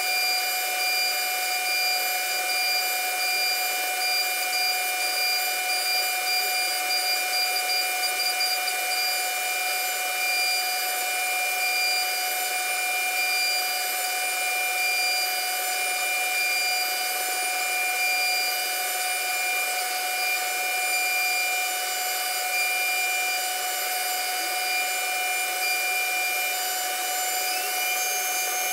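CNC router's electric spindle running at high speed with a steady whine of several fixed tones over a hiss as the bit carves into wood. Near the end a new, higher tone rises in pitch and then holds.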